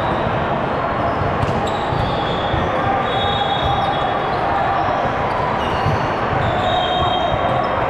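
Indoor volleyball match noise in a large gym: balls thudding and sneakers squeaking on the court, several short squeaks, over a steady hubbub of many voices.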